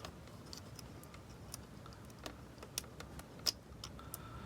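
Faint, irregular light clicks and taps, about half a dozen spread out, with one sharper click about three and a half seconds in: a wire being pushed into the coil-spring terminals of an electronics project kit.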